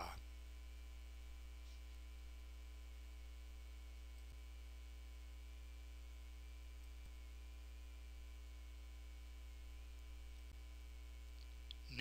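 Steady low electrical mains hum with a faint steady high tone above it, unchanging throughout; no other sound.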